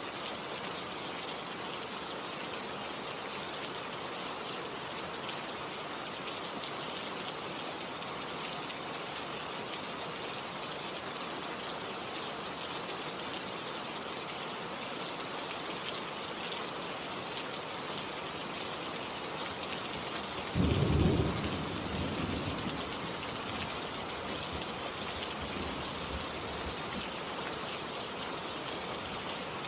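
Steady rain falling. About two-thirds of the way through, a short rumble of thunder starts suddenly and dies away over a couple of seconds.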